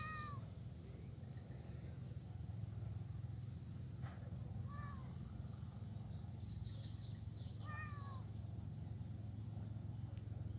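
A kitten mewing: three short, thin mews, each dipping slightly in pitch, spaced a few seconds apart. Under them run a steady high insect drone and a low hum.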